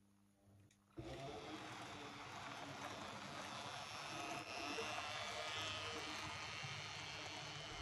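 N gauge model of a class 350 electric multiple unit running along the layout track: the steady noise of its small motor and its wheels on the rails, starting suddenly about a second in.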